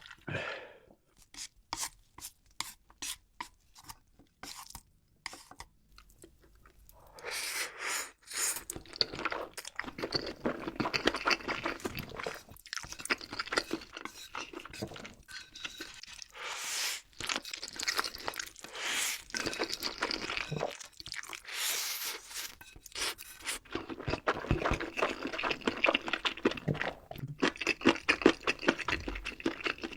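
A person chewing crunchy food close to the microphone. First come a few scattered clicks and mouth smacks. About seven seconds in, steady dense crunching starts; it pauses briefly a little after twenty seconds and then resumes.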